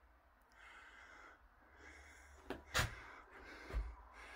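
Faint breathing close to the microphone, two soft breaths in the first half, with a few light knocks after.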